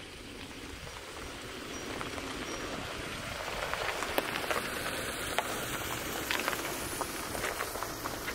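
Outdoor ambience: a steady hiss that slowly grows louder, with many scattered sharp crackles from about three seconds in.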